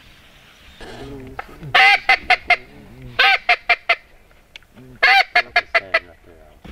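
Hand-blown duck call sounding two runs of quacks about three seconds apart, each a long loud note followed by about four short, quick notes.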